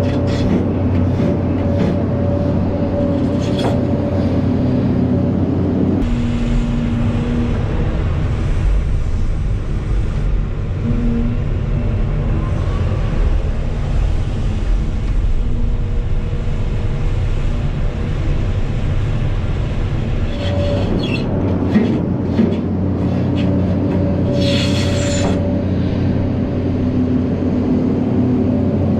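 Heavy diesel engines of a Hitachi 1200 hydraulic excavator and Volvo A60 articulated dump trucks running at work, a loud, steady deep drone. Short high-pitched sounds come through now and then, the longest lasting about a second near the end.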